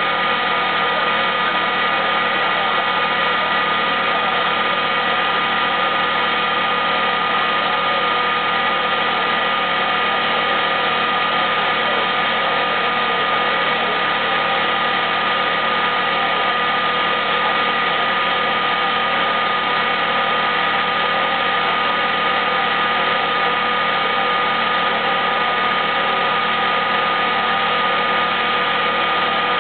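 Used-oil re-refining plant machinery running steadily: a loud, constant mechanical hum with several steady high tones, unchanging in level throughout.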